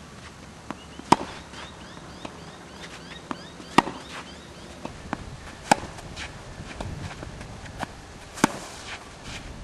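Tennis ball struck by racquets in a baseline rally: four sharp hits two to three seconds apart, with fainter ticks of bounces and footfalls between them.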